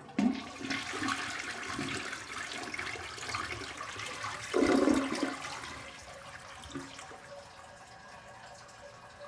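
Toilet flushing: a sudden rush of water, a louder gurgling surge about halfway, then the flow dies down to a quieter trickle as the bowl refills.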